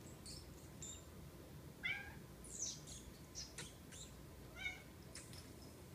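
Domestic cat meowing: a short meow about two seconds in and another near the end, with brief high squeaks in between.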